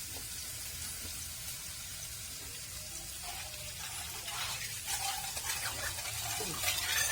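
Squirrel meat and spices sizzling steadily as they fry, being stirred.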